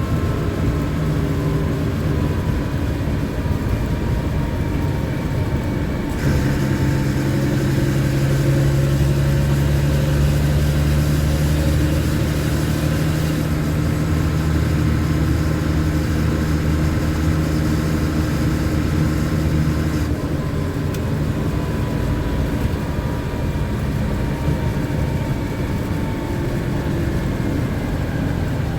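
LMTV military truck's diesel engine running while driving. The engine note grows louder and fuller about six seconds in and drops back to its earlier level about twenty seconds in.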